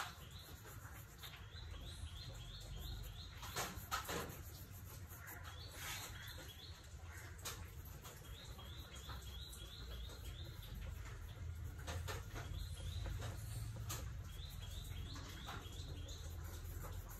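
High chirps repeated in quick runs of five or six notes, a run every few seconds, over a low steady hum, with a few soft clicks in between.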